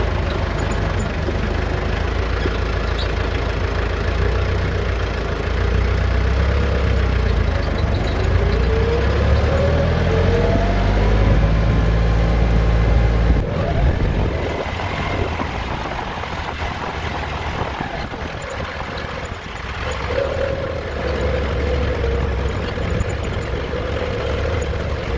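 A vehicle engine running, its pitch rising and falling as the revs change. Heavy wind rumble on the microphone stops suddenly about halfway through.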